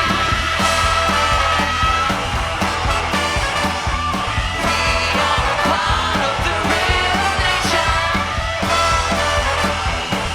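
Live soul band playing an upbeat groove, with drums, bass and a horn section, and singing over it.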